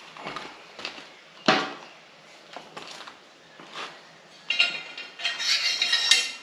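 Metal tools and motorcycle exhaust parts clinking and knocking as the stock exhaust is worked loose, with a sharp clank about a second and a half in. Near the end comes a couple of seconds of metal rattling and scraping.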